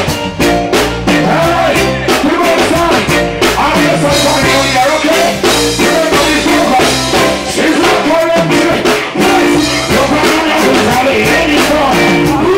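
A live reggae band with drum kit, electric guitar and keyboard plays loudly, with a male vocalist singing over it through the PA.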